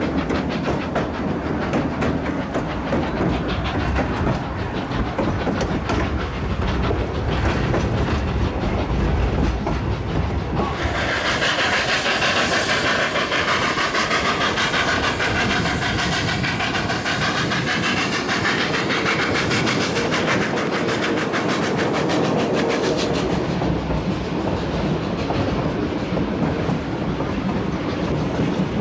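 Narrow-gauge steam passenger train running, its wheels clicking over the rail joints in a steady clatter. For about twelve seconds in the middle a louder high-pitched sound rides over the running noise.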